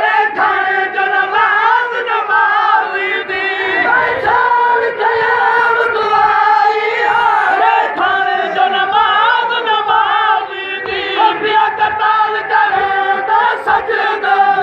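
A crowd of men chanting a nauha, a Shia mourning lament, together in unison. Short slaps recur through it, the sound of matam, hands beating on chests in time with the chant.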